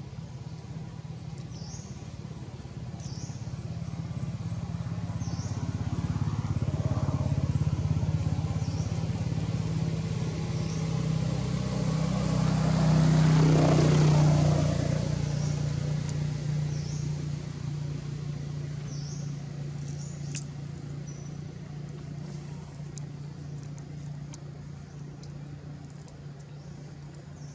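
A motor vehicle's engine passing by, growing louder, loudest about halfway through, then fading away. A faint high chirp repeats about once a second throughout.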